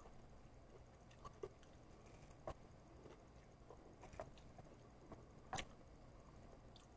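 Faint eating sounds of someone eating chow mein noodles with chopsticks: a handful of scattered small clicks and mouth smacks, the loudest about five and a half seconds in.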